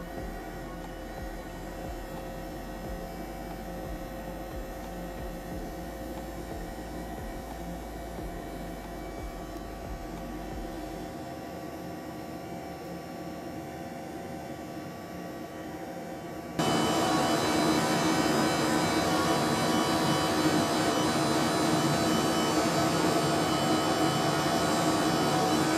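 Homemade vacuum cleaner's 12-volt DC motor running with a steady hum, suddenly getting louder and harsher about two-thirds of the way through and staying there.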